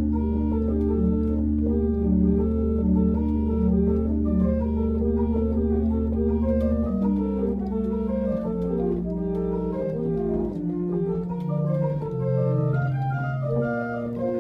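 Upright piano being played: a melody over long-held low bass notes, with the bass changing about halfway through and then stepping downward.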